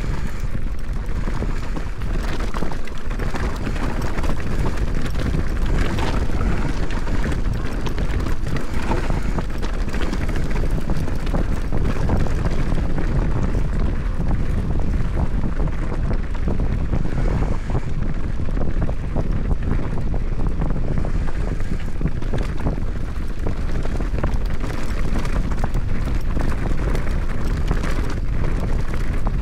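Wind buffeting the camera microphone at riding speed, with a mountain bike rattling and clattering over a rough downhill trail in many quick knocks.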